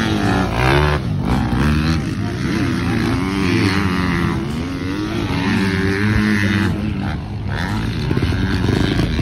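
Several motocross dirt bikes running on the track at once, their engines revving up and down, the overlapping pitches rising and falling as the riders work the throttle.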